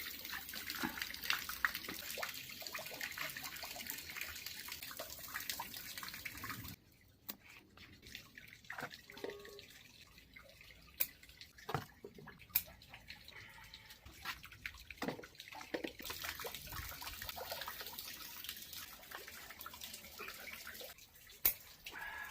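Rain falling on the garden plants, a steady hiss that drops out abruptly for a stretch in the middle and then comes back, with scattered sharp clicks and knocks from handling the plants.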